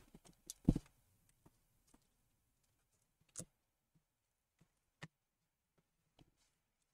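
Sparse small clicks and taps from a laptop's internals being handled as its LCD display cable is connected, with a few sharper clicks about a second, three and a half seconds and five seconds in.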